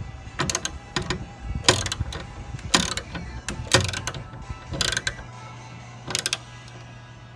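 Ratchet wrench clicking in short bursts, about once a second, as it tightens a set screw on a fan-shaft bearing's locking collar.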